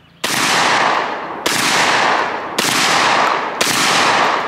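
MAC 1014 12-gauge semi-automatic shotgun, gas-operated, firing four shots of 00 buckshot about a second apart, each a sharp blast with a long ringing tail. The action cycles and feeds properly on every shot, a sign that this hot 00 buck load gives the gas system enough power to work the bolt.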